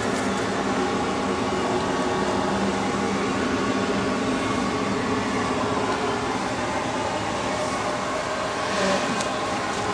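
Tsugami BS-20II CNC Swiss lathe powered up, giving a steady machine hum with several held tones; a short hiss about nine seconds in.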